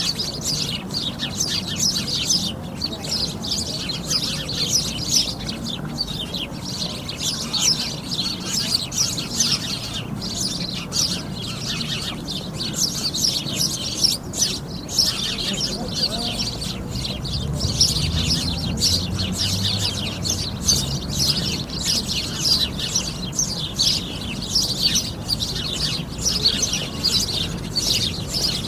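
A flock of sparrows chirping, many short calls overlapping in a constant chatter with no pause.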